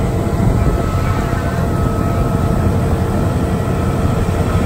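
Heavy paving machinery running: the diesel engine of an asphalt paver and a Hamm tandem roller make a steady, continuous drone with a deep rumble.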